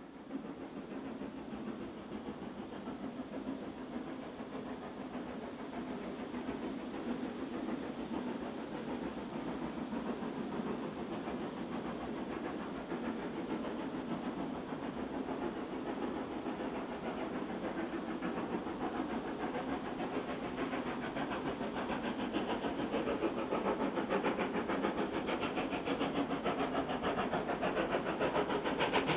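Steam locomotive working a train, its exhaust and running noise growing steadily louder as it approaches.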